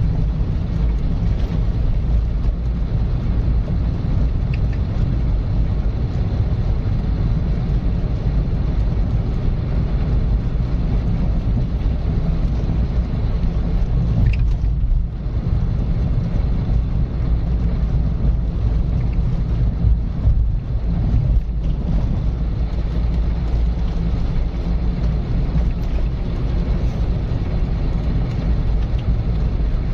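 Car driving along a road at a steady pace: continuous engine and tyre noise with a steady low rumble, easing off briefly twice midway.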